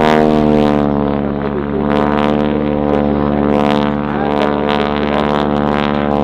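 Boeing Stearman biplane's radial engine and propeller droning steadily in flight, its pitch sagging slightly as it passes.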